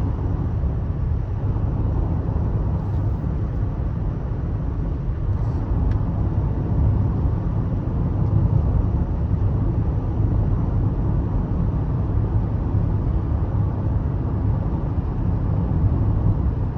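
A vehicle driving along: steady low engine and road rumble.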